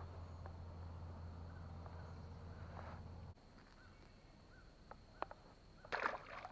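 Jon boat's electric trolling motor humming low, then switched off abruptly about three seconds in. After it, a steady high insect buzz and a few short bird chirps carry on, with a brief clatter near the end.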